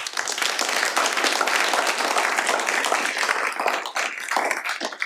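Audience applauding, starting all at once and thinning out to scattered claps near the end.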